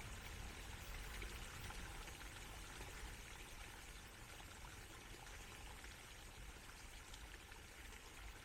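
Small garden stream running over stones, a faint, steady trickling and splashing with a low rumble underneath.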